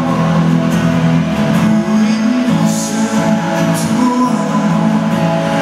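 A man singing live while strumming an acoustic guitar, heard through a stage sound system.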